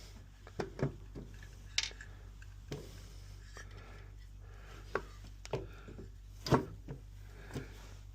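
Irregular light knocks and clicks, about a dozen, scattered unevenly, the loudest one about six and a half seconds in, over a steady low hum.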